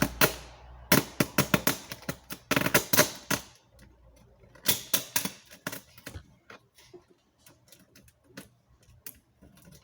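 Clear sticky tape crackling and clicking as it is handled, pressed and cut, in quick bunches of sharp clicks that thin out to scattered faint ticks in the second half.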